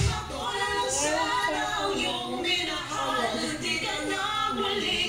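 A woman's voice singing a melody without a break, with other voices singing along.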